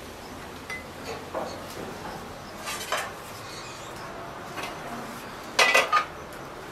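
A few light clinks as a glass and a plate are set down, then, about five and a half seconds in, three quick clanks with a brief ring as the metal lid is lifted off a cooking pot.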